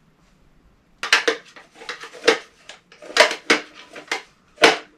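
Airsoft replica guns and gear being handled: the rifle is swapped for a revolving-cylinder grenade launcher replica, giving a quick run of hard plastic and metal clicks, knocks and rattles. The sharpest knock comes near the end.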